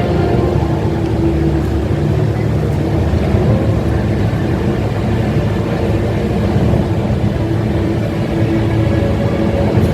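Steady, loud rushing of the Rain Vortex, the large indoor waterfall at Jewel Changi, pouring into its pool, with faint music underneath.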